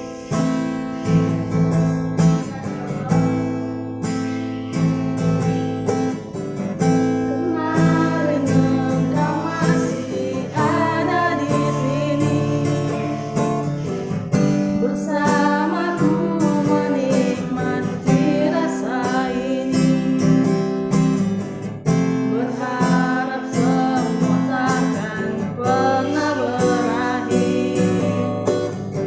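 Acoustic guitar strumming chords, with a voice singing along from about ten seconds in.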